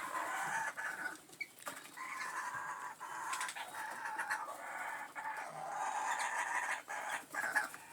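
Birds calling and chattering close by, running on through most of the stretch with a short break just after a second in.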